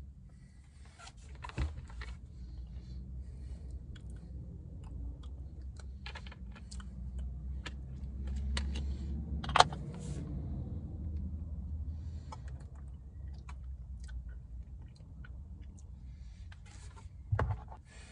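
Scattered small clicks, taps and rustles of handling inside a car cabin, over a steady low hum; the sharpest click comes about halfway through and a knock near the end.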